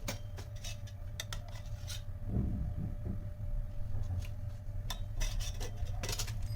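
Kitchen handling sounds: a series of sharp clicks and short rubbing scrapes of utensils and a bowl, over a steady low hum.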